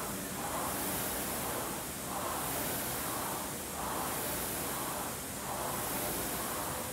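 Air-resistance rowing machine's flywheel fan whooshing in time with hard rowing strokes, one surge of rushing air about every second and a half.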